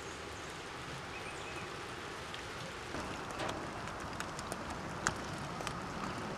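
Steady hiss of rainfall, with individual raindrops ticking sharply from about halfway through.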